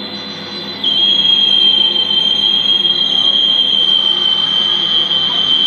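Electronic noise music from a tabletop rig of effects pedals and a mixer: a shrill, steady high tone over a low hum and hiss. About a second in the tone drops slightly in pitch and gets much louder, with small pitch steps later.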